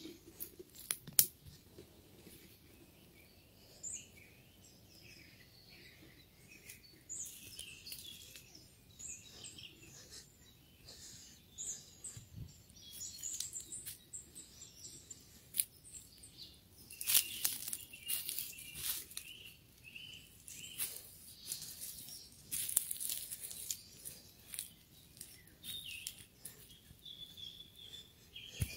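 Small birds chirping and singing in woodland, with footsteps crackling and rustling through dry leaves and twigs; the crackling gets louder and busier in the second half.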